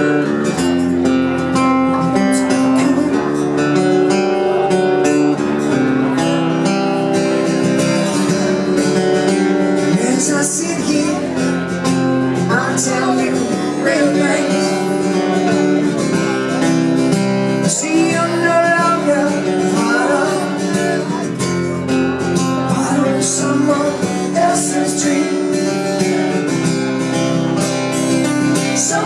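Live acoustic rock song: two acoustic guitars strummed together under a man's lead vocal.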